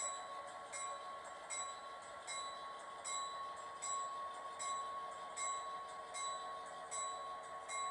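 Model train running on a layout: a steady electric-motor hum with a short metallic click-and-ring repeating evenly about every 0.8 seconds.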